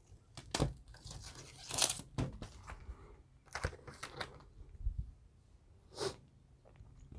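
Comic books in plastic sleeves being handled, giving several short bursts of crinkling and rustling.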